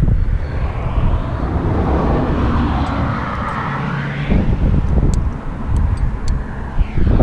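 Engine noise passing by, swelling to a peak about four seconds in and then fading, over low wind rumble on the microphone. A few light high clicks come between about five and six seconds in.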